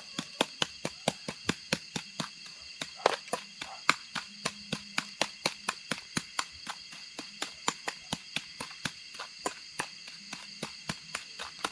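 Night insect chorus, a steady high-pitched trilling, with close, sharp knocks repeating evenly about four times a second throughout.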